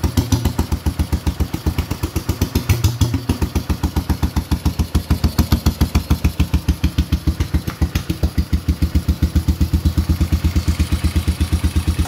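Yamaha XT 250's single-cylinder four-stroke engine idling steadily, with an even, rapid beat of exhaust pulses.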